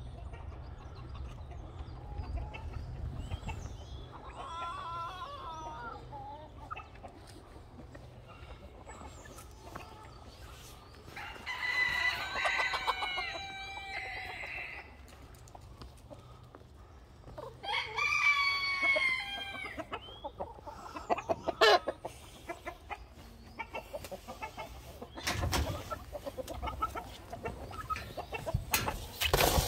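Roosters crowing: two long crows a few seconds apart, each lasting two to three seconds, with a fainter call before them and short clucks from hens between.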